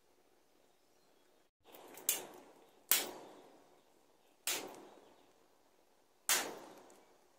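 Four sharp knocks at uneven intervals, each dying away over about half a second, with quiet between them.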